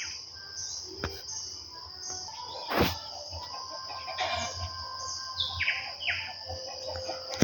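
Songbirds chirping, with quick falling notes repeated several times near the end, over a steady high-pitched insect trill. A single sharp click sounds about three seconds in.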